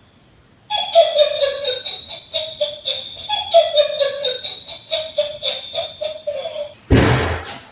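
A motion-activated electronic toy going off, playing a run of quick, bright electronic notes for about six seconds. A short burst of noise follows about seven seconds in.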